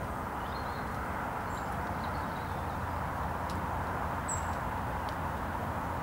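Steady outdoor background noise, with a few faint, brief high chirps of small birds.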